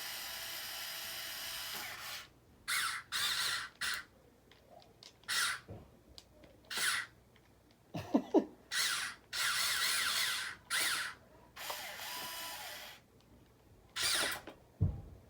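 Small electric motors of radio-controlled construction models running in short bursts of up to two seconds, stopping and starting again with pauses between. A squeak and a couple of knocks come about eight seconds in, and a dull thump near the end.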